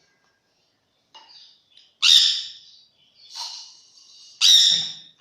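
Baby sun conure calling: a few faint chirps about a second in, then three harsh squawks, the first and last loudest. These are the raspy food-begging calls of a hand-fed parrot chick.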